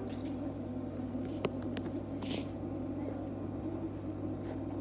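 Pause in a hall full of seated children: a steady low electrical hum under a faint, shifting murmur and stir, with a couple of small clicks about a second and a half in.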